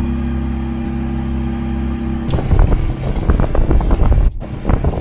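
A steady engine hum, then about two seconds in a sudden change to louder, choppy sound with music.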